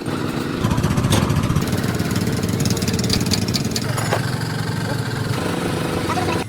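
An engine running steadily with a rapid, even firing pulse, a little louder for about the first second after it picks up.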